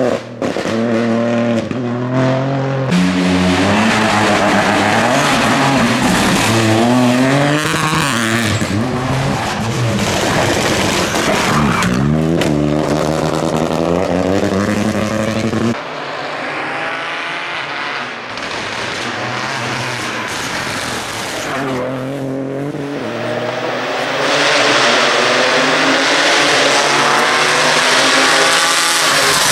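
Opel Corsa Rally4 rally car's turbocharged three-cylinder engine at full throttle, revving up and dropping again and again with quick gear changes as the car passes. Several separate passes follow one another, with a softer, more distant stretch in the middle and a louder approach near the end.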